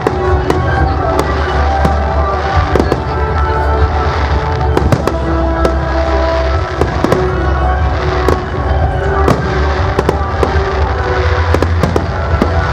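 Fireworks display going off: a rapid, continuous run of sharp bangs and crackles, several a second, with music playing underneath.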